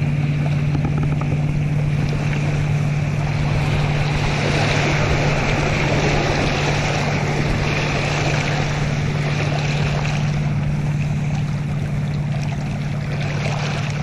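Motorboat engine running with a steady low hum. In the middle, its wake washes and splashes against the rocky riverbank for several seconds.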